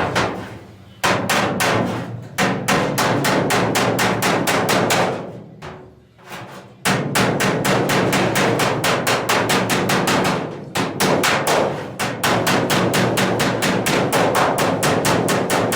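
Body hammer striking the steel roof panel of a 1970 Dodge Challenger over a dolly held beneath it, in quick even runs of about five blows a second. Each blow rings briefly in the sheet metal. The work knocks down high spots to cure oil canning; the ring changes as the metal comes flat. There is a pause about five seconds in and short breaks near the ten- and twelve-second marks.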